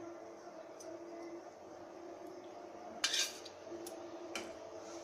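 Stainless steel bowl and plate clinking as oil is poured from the bowl onto flour in the plate and the bowl is set down. There is one sharp clink about three seconds in and a lighter tap near the end, over a faint steady hum.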